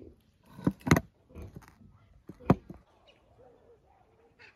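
A few sharp knocks, the two loudest about a second in and about two and a half seconds in.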